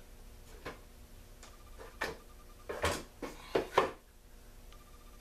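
Small metal parts and hand tools clinking and knocking on a workbench as they are picked up and set down: a handful of sharp knocks, the loudest in a quick cluster about three to four seconds in.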